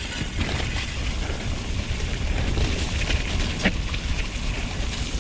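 Mountain bike riding noise on a mounted action camera: steady low wind buffeting and the rumble and rattle of the bike rolling over rough, wet trail, with a sharp knock about three and a half seconds in.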